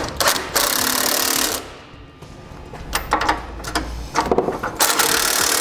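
Milwaukee cordless impact wrench with a 3/4-inch socket hammering base-plate bolts tight, in two bursts: one of about a second just after the start, and another starting near the end. A few light knocks come between them.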